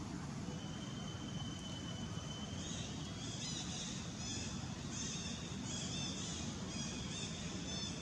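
A bird calling: one long steady high note, then short high chirps repeated about one and a half times a second, over a constant low rumble of background noise.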